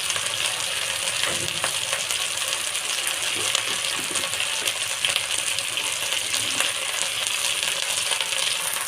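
Spice masala paste frying in oil in a pan, sizzling steadily, with a spoon clinking and scraping against the pan now and then as it is stirred.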